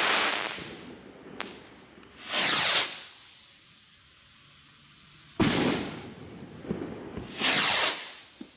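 Silly Cow fireworks rockets: a burst dies away at the start, a rocket goes up with a whoosh about two seconds in, and it bursts with a sudden bang about three seconds later. Another rocket goes up with a whoosh near the end.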